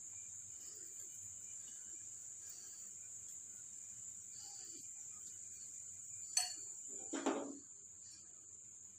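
A faint, steady high-pitched whine, with a sharp click about six seconds in and a short clatter just after it.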